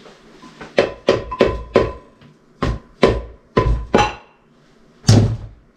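About nine mallet blows on a Kenne Bell twin-screw supercharger's aluminium case, unevenly spaced. Several leave a brief metallic ring. The last blow, about five seconds in, is the heaviest.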